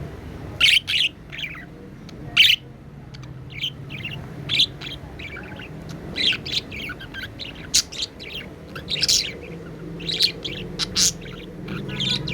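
Budgie chirping: many short, sharp chirps and twitters at an irregular pace, over a low steady hum.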